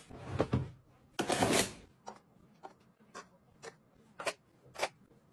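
A plastic foot spa tub sliding and scraping across a stone countertop, the loudest scrape about a second in, followed by a run of light clicks about two a second.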